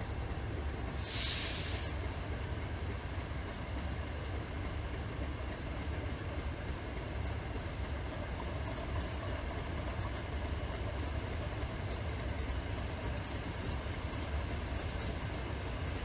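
English Electric Class 50 diesel locomotive running light at low power, its 16-cylinder diesel engine giving a steady deep rumble as it rolls slowly in. A short hiss sounds about a second in.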